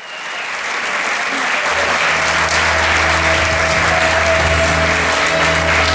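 Theatre audience applauding, swelling up over the first second, with music from the show's band coming in underneath after a couple of seconds.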